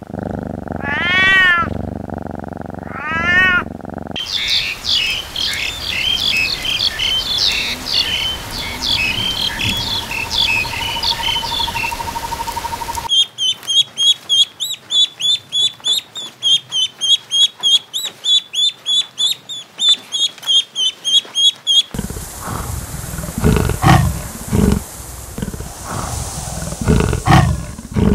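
A domestic cat meows a couple of times. Then comes dense high chirping from small birds, followed by a rapid, even run of high peeps from ducklings. Near the end, a cheetah gives low, repeated growling calls.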